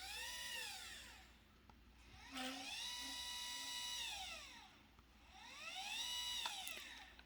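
Celestron CGX mount's drive motors slewing, a whine that rises in pitch, holds and falls away, three times over, with a few short low chirps as the second run starts. This is the noise likened to a barking otter, which the owner puts down to a loosened motor-mount screw.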